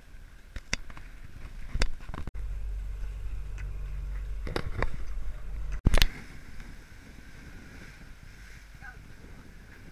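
Wind buffeting the microphone and water rushing along the hull of a sailing yacht under way, with several sharp knocks and clicks. The loudest knock comes about six seconds in, and the sound changes abruptly twice, turning to a steadier, quieter hiss after it.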